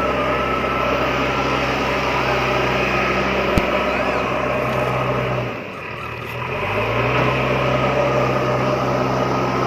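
Mini tractor's engine running steadily. Its sound drops away about halfway through, then builds back up to a steady run.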